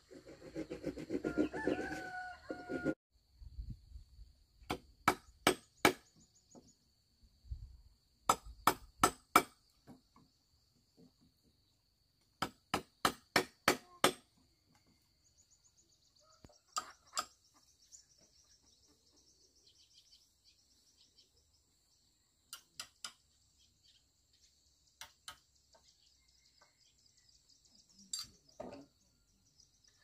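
A rooster crows once at the start. Then sharp knocks come in quick runs of four to six, a few seconds apart, with single knocks near the end, over a faint steady high buzz.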